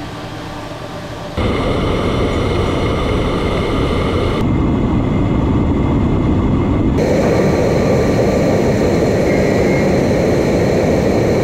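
CNC mill-turn machine cutting a metal part: a loud, steady rush of coolant spray and cutting noise with a faint spindle whine through it. It comes in suddenly about a second and a half in and changes character abruptly twice.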